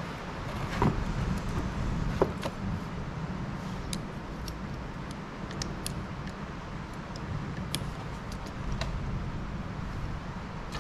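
Hand tools clicking and tapping now and then against the removed fuel injection pump of a Cat D6B dozer while it is opened up to free its gummed-up, stuck rack. Under the clicks runs a steady low rumble.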